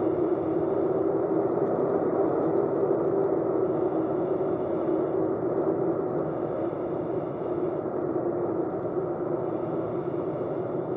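Rotax engine of a light aircraft running steadily, heard on board as a constant drone with one strong steady hum through it, dropping slightly in level about halfway through.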